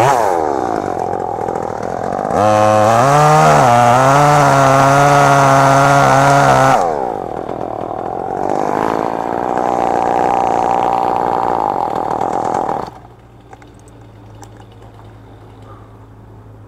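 Chainsaw engine revving up sharply, running at high speed for about four seconds, easing back, then held high again for about four more seconds before it stops about thirteen seconds in.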